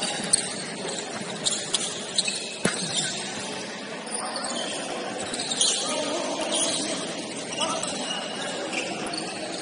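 Indoor basketball game on a gym court: a steady echoing murmur with scattered sharp thuds of the ball and feet, and brief high squeaks, busiest in the first three seconds.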